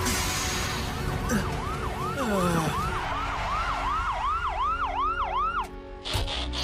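Police car siren yelping, a rapid rise and fall about three times a second. It cuts off near the end, followed by a short knock.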